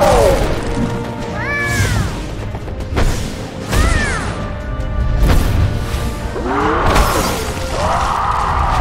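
Cartoon fight soundtrack: music under a giant crow's voiced screams, several calls that rise and fall in pitch, mixed with sharp hits and a shattering crash.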